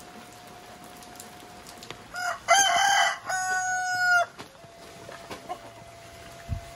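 A rooster crowing once, about two seconds in: a cock-a-doodle-doo of about two seconds that ends on a long held note.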